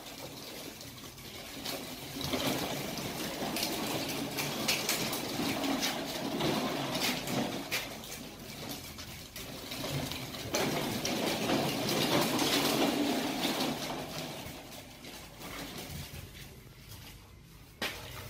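Hard plastic toy wheels rolling over a rough concrete floor, a grinding rumble that swells and fades twice, with a couple of sharp clicks.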